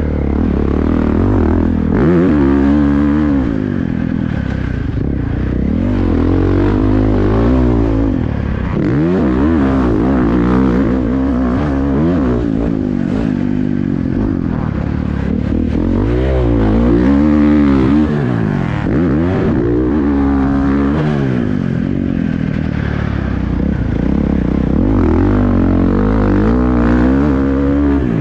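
2023 Husqvarna FC450 motocross bike's 450cc single-cylinder four-stroke engine, heard from the rider's helmet camera while riding a dirt track. The revs climb and drop again and again through the corners and jumps.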